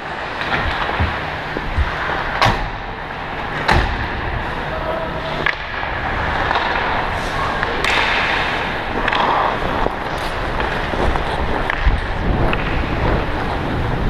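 Hockey skates scraping and gliding on rink ice, heard from a camera worn by a skating player, with a rumble of motion on the microphone. A few sharp clacks of sticks and puck come through in the first half.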